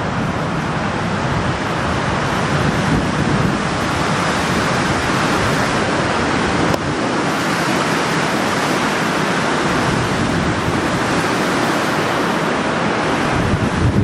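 Strong, gusty wind rushing through marsh brush and buffeting the microphone as a loud, steady roar, with a brief dip about seven seconds in.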